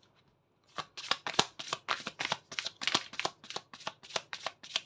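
Tarot cards being shuffled by hand: after a brief pause, a quick, even run of card snaps, about five a second.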